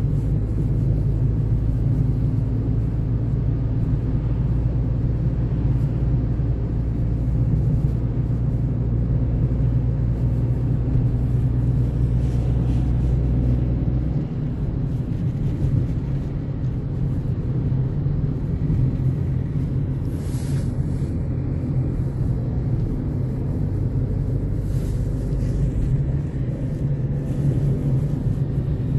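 Car engine and road noise heard from inside the cabin while driving, a steady low rumble. The low hum changes about halfway through, and there is a brief hiss about twenty seconds in.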